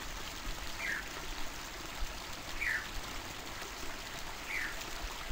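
Water splashing steadily down a small three-tier pond waterfall, about 4,000 gallons an hour falling into the pond. A short, high chirp that falls in pitch repeats about every two seconds over it.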